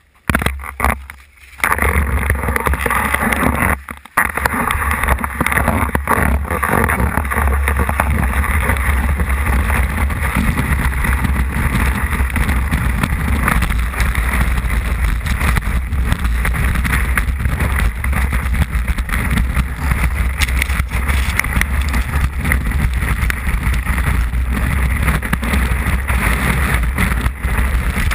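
Skis running fast over snow, heard from a camera mounted on the ski: a steady rush of wind buffeting the microphone with a low rumble, mixed with the hiss and scrape of the skis on the snow. A few short scrapes in the first two seconds, as the skier sets off, before the rush becomes continuous, with a brief break about four seconds in.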